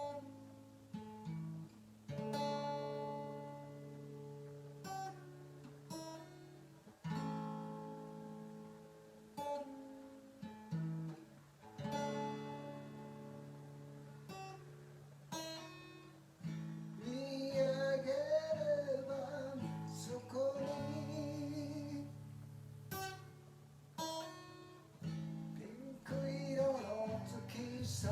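Acoustic guitar strumming and picking chords, a slow song introduction; about two-thirds of the way through a voice begins singing over the guitar.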